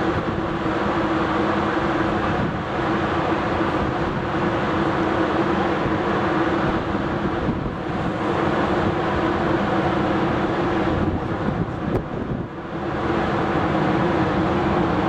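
Boeing 747-400D's jet engines running steadily at taxi power, a broad jet noise with a held hum underneath, dipping briefly about twelve seconds in.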